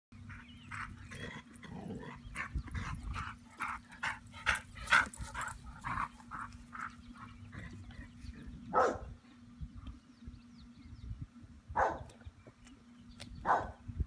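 Small dog barking at thunder: a rapid run of short barks, about two a second, for the first six seconds, then three single barks a few seconds apart.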